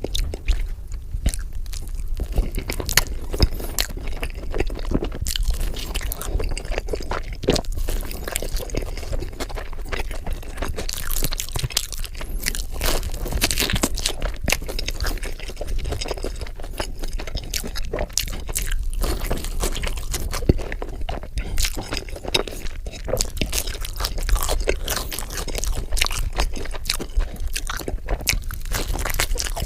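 Pizza being bitten and chewed close to the microphone: a dense, continuous run of crisp clicks and wet smacks.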